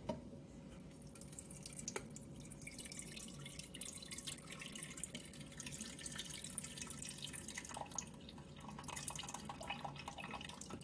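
Liquid from a jar of home-canned corn draining out into a pot in a faint, steady trickle, with a light click about two seconds in.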